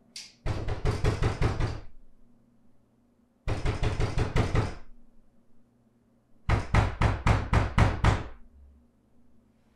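Knocking on a door: three rapid bouts of about six or seven knocks each, starting about three seconds apart.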